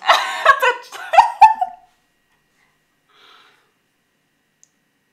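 Loud, high-pitched shrieks of excitement with a few sharp knocks mixed in, breaking off after about two seconds: a cry of delight at pulling a rare card.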